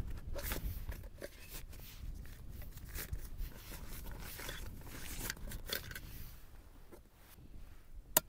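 Nylon stuff sack rustling and scraping as it is handled and opened, in irregular bursts. Near the end there is a single sharp click.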